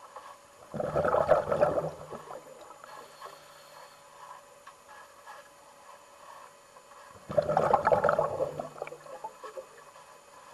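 Pool water churning and gurgling in two surges about six seconds apart, each lasting a second or so, over a faint steady background.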